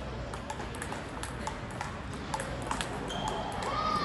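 Table tennis balls clicking off bats and tables at irregular intervals, sharp light ticks from games in play around the hall. A brief squeak comes near the end.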